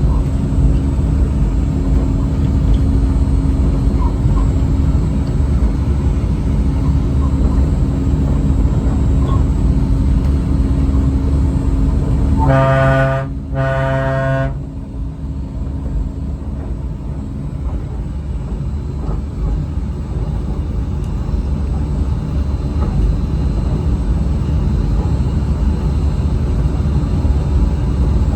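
Disneyland Mark VII monorail running, heard from inside the front cabin: a steady low rumble with a steady hum, and about halfway through the horn sounds two short toots.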